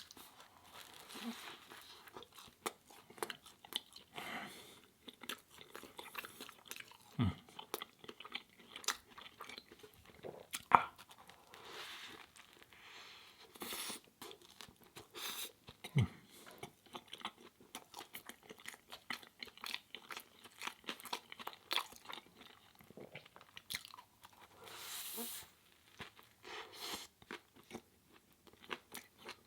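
Close-miked chewing and crunching of a vegan crispy chicken sandwich: irregular crackly bites and wet chewing, with a few sharper crunches along the way.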